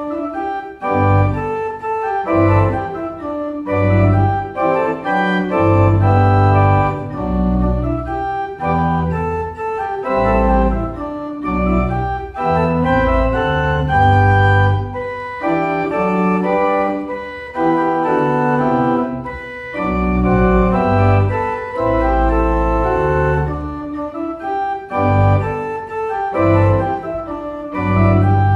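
Pipe organ playing a piece in full sustained chords on the manuals, with deep pedal bass notes sounding under the harmony.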